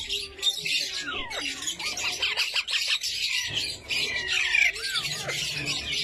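A cage full of young parakeets chattering and squawking together, with many short, high calls overlapping without a break.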